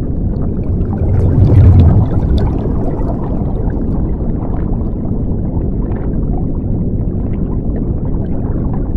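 Underwater sound effect: a deep rumbling wash of water with bubbling and fizzing crackles, swelling louder about a second in, then holding steady.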